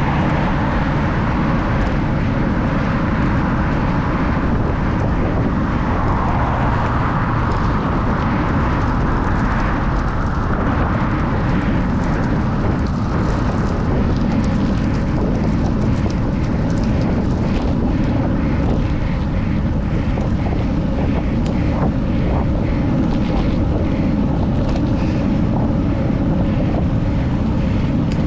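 Steady wind rumble on the microphone, as from riding a bicycle at speed, with a cyclist's labored breathing, winded from a hard finishing effort.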